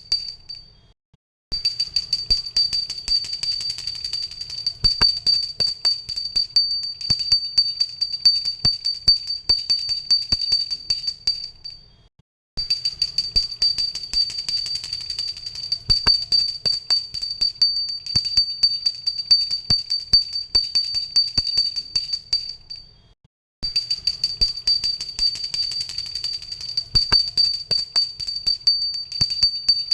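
Pooja bell (hand-held worship bell) rung rapidly and continuously, a fast run of strikes with a bright, high ringing. It stops and starts again three times: it dies away in the first second and a half, again about twelve seconds in, and again about twenty-three seconds in.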